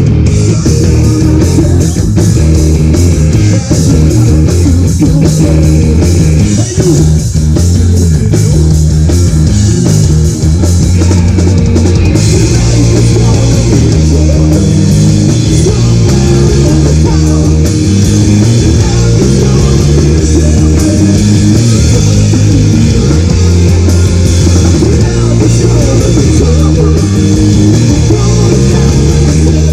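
Live rock band playing loud: distorted electric guitars, bass guitar and a drum kit with crashing cymbals, in an instrumental passage without vocals. The cymbals grow brighter about twelve seconds in.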